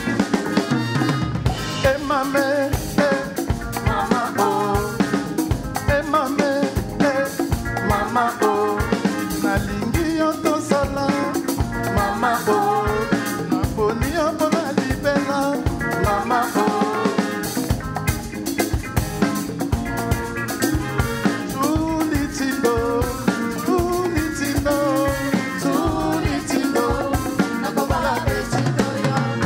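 Band music with a busy drum-kit beat, snare and rim hits, and a melody line over it.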